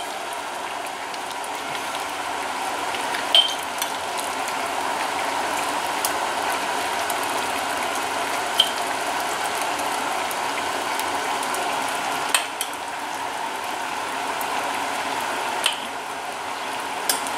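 Pan of courgettes in hot syrup simmering with a steady bubbling hiss, while a metal ladle clinks sharply against a glass jar every few seconds as the jar is filled.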